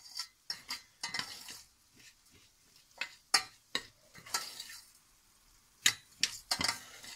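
Long-grain rice being stirred in melted butter in a stainless steel saucepan as it is sautéed until glossy: a spoon scrapes and knocks against the pan in short, irregular strokes, with a soft sizzling hiss between them.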